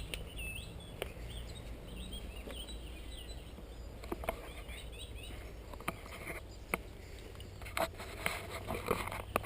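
Small birds chirping in short repeated notes, strongest near the start and fainter later, with a few scattered light knocks and clicks in the second half.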